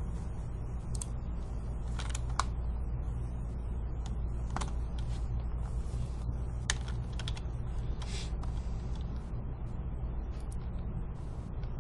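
Scattered, irregular clicks of a computer keyboard and mouse, a dozen or so taps over a steady low hum.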